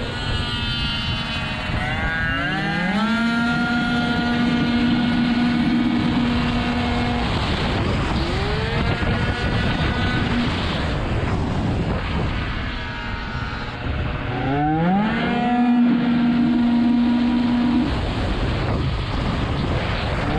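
Tuned two-stroke racing scooter engine at full throttle, heard onboard over wind rush. Its revs climb quickly about two seconds in and hold at one high steady pitch while speed builds, drop off around seven seconds in, climb again, and climb once more about fifteen seconds in to hold high near the end.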